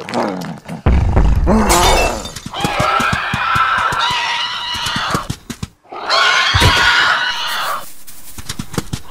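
Animated dinosaur sound effects: a deep growl about a second in, then shrill velociraptor-style screeches in two long runs with a short break near the middle, and scratchy clicking near the end.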